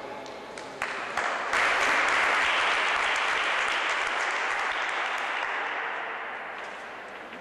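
Audience applauding: a sharp click about a second in, then clapping that builds quickly and slowly dies away.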